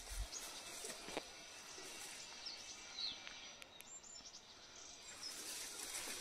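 Faint outdoor ambience: a few short, high bird chirps scattered through it, over a faint steady insect sound.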